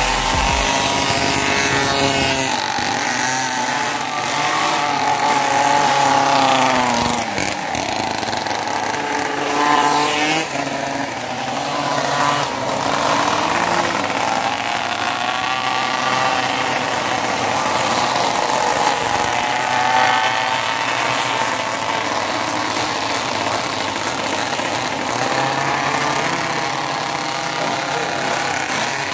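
Small two-stroke engines of pocket mini bikes racing, a buzzing whine that rises and falls in pitch as the riders open and close the throttle through the corners.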